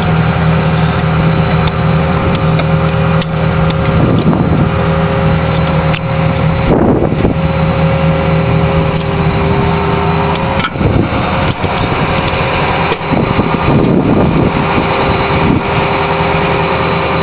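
A motor running steadily at one speed, with sharp metallic clicks and knocks from hand tools scattered over it.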